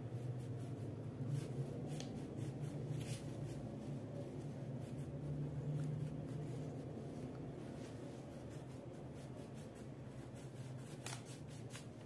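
Wax crayon scratching and rubbing on paper as a child colors a picture, with a few light ticks of the crayon against the page, over a steady low hum.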